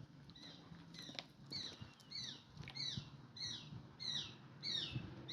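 A bird calling a rapid series of short, falling chirps, about two or three a second, getting louder as it goes. A few sharp clicks come in the first two seconds, over a faint steady low hum.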